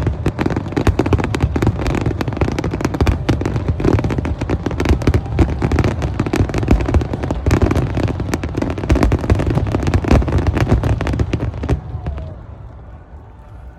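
Fireworks going off in a dense, rapid barrage of bangs and crackles that cuts off suddenly about twelve seconds in.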